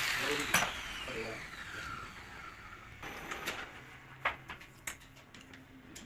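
A handheld power tool spinning down after being switched off, its whine falling steadily in pitch over the first two seconds, followed by a few separate sharp clicks and taps of work on the engine.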